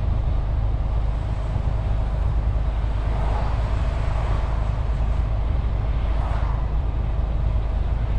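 MAN TGX 470 truck's six-cylinder diesel engine running steadily, heard from inside the cab as a low rumble under a wash of road noise.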